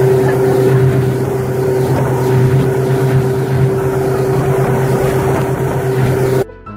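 Motorboat engine running steadily at speed, a constant drone, with the rush of the churning wake water. The sound cuts out briefly near the end, then comes back.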